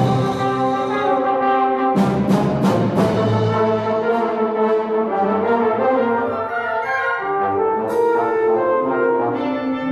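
Solo trombone with a wind orchestra playing a concerto, the full band sustaining chords under the brass, with a few sharp accented hits about two seconds in and again near the end.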